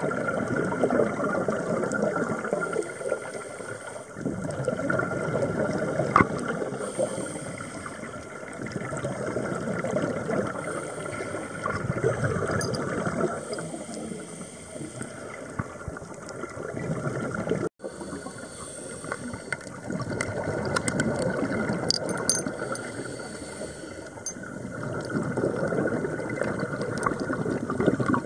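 Scuba divers breathing through their regulators underwater: exhaled air bubbling and rushing out in swells every few seconds. There is a brief break about two-thirds of the way through.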